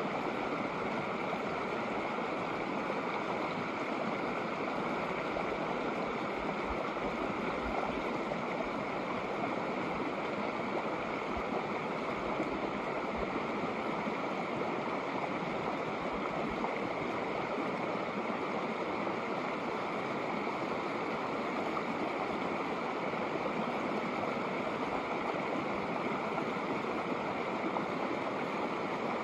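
Shallow snowmelt creek flowing over rocks: a steady, even rush of running water.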